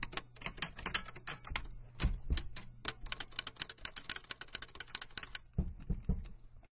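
Rapid clicking of keys being typed, a fast uneven run of sharp clicks over a faint low hum. The clicking stops about five seconds in, a few heavier thumps follow, and the sound cuts off abruptly.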